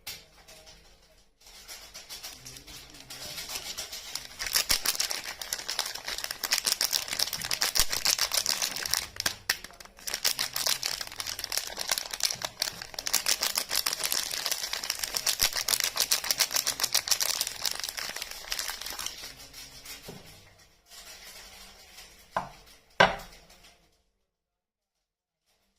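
Soap packaging crinkling and tearing as it is unwrapped by hand, a long stretch of dense, fine crackle. Two sharp clicks follow near the end.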